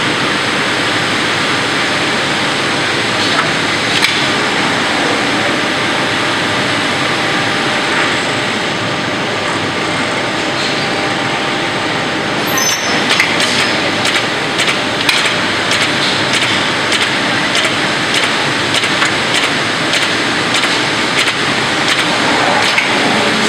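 Steady machinery noise from an automated glass-sheet loading and cutting line, with a run of sharp clicks and knocks starting about halfway through.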